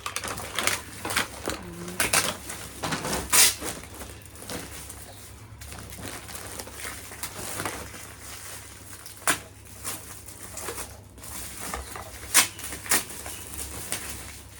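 Gift packaging being handled and torn open: irregular rustling, crinkling and crackling of paper and plastic, with a few sharper snaps. A brief voice sound about two seconds in.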